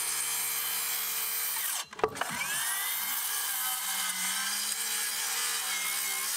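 Hikoki circular saw cutting across a bundle of 47 mm square tanalised timber lengths, the blade running steadily through the wood. The sound breaks off briefly about two seconds in, then the saw runs up again and carries on cutting.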